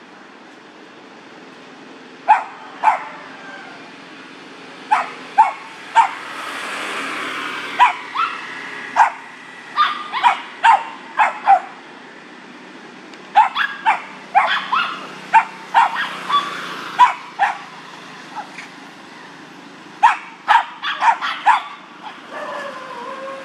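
Small dog barking repeatedly in short, sharp clusters of two to five barks with brief pauses between them.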